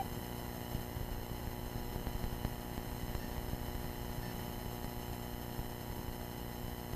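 Muffled underwater sound from a submerged action camera: a steady low rumble and hum with a few faint knocks.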